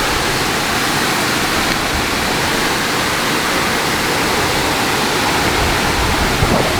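Small woodland waterfall splashing steadily over a rock ledge, an even rush of falling water close by.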